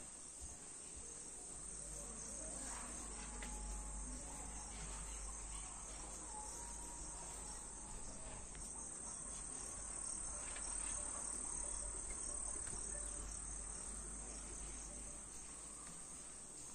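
Steady, high-pitched chirring of insects at dusk, with a low rumble underneath.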